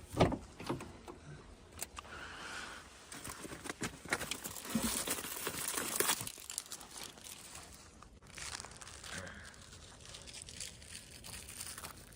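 Crinkling and rustling with scattered sharp clicks, busiest in the middle and dying down after about 8 seconds.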